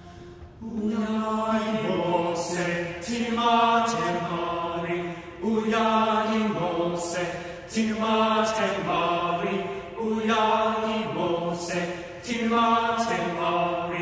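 A small choir of male voices singing a hymn together in short, repeated phrases that rise and fall, with no instrument clearly heard.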